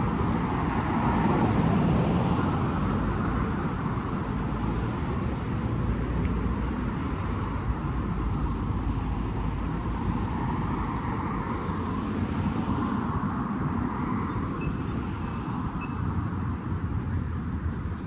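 City street traffic: cars passing in a steady wash of road noise that swells as each vehicle goes by, loudest about two seconds in.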